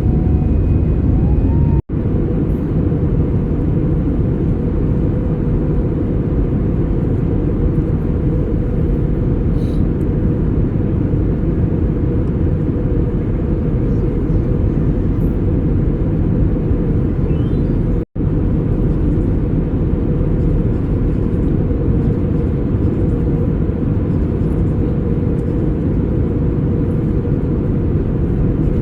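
Steady low rumble of engine and airflow noise inside an Airbus A320 cabin, broken by two abrupt, very brief gaps.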